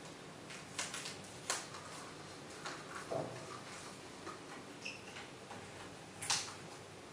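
Paper cups and sellotape being handled: faint scattered crinkles and small taps, with a sharper click about a second and a half in and another about six seconds in.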